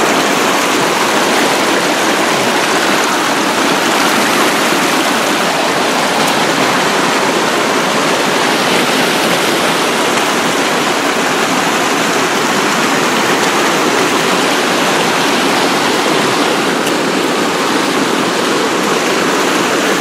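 Rushing creek water, a loud, steady wash of running water that stays even throughout.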